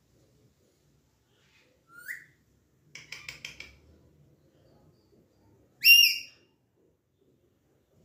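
Alexandrine parakeet calling: a short rising squeak about two seconds in, a quick stuttering chatter around three seconds, and a loud call rising in pitch about six seconds in.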